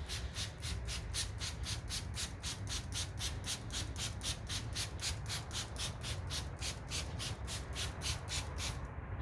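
A 1000-grit sanding pad rubbed back and forth by hand across a plastic headlight lens, taking off the oxidized, hazed layer. It makes even scratchy strokes at about four a second and stops near the end.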